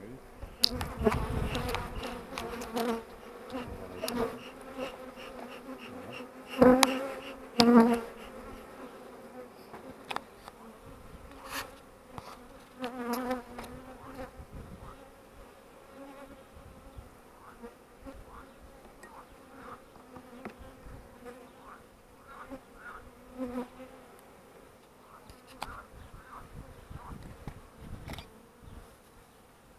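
Honeybees buzzing over an open hive: a steady hum that swells loudly twice, about seven seconds in.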